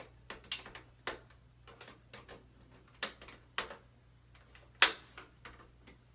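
Sharp plastic clicks and cracks as screwdrivers are forced into the release holes of an Xbox 360's plastic outer casing to pry its clips open: an irregular series of snaps, about five loud ones, the loudest almost five seconds in.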